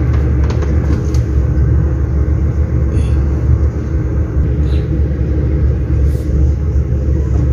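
Evaporative tower air cooler's fan running steadily on low speed, a low rumble heard close to the back of the unit, with a few faint clicks.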